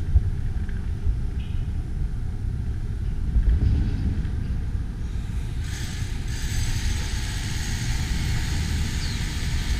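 Street traffic going by, with a low, gusty rumble throughout; a vehicle passes more loudly from a little past halfway, adding a broad hiss.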